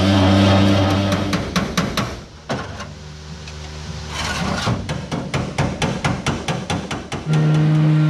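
An angle grinder running as it cuts the rusted trunk pan of an old car, stopping after about a second and a half. A quick run of sharp metal knocks follows, and an electric orbital sander starts up near the end.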